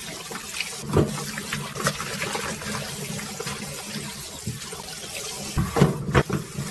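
Water running and splashing as peeled bellflower (doraji) roots are rinsed and rubbed clean by hand, with a few knocks against the container, about a second in and twice near the end.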